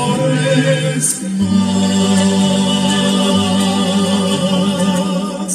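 Havanera vocal group singing. About a second and a half in, the voices settle into one long held chord that closes the song.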